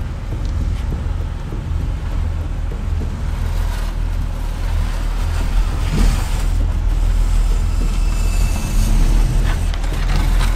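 Ram 1500 Classic pickup truck crawling slowly down a rock ledge, its engine running low under a steady wind rumble on the microphone, with a few brief knocks or scrapes about four, six and ten seconds in that sounded bad.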